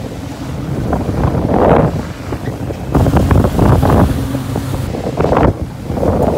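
Wind gusting hard on the microphone over the steady hum of a sportfishing boat's engines and the rush of its wake as it runs at speed on open sea.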